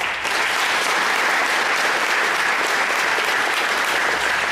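Crowd applauding steadily, a dense patter of many hands clapping that starts suddenly and fades near the end.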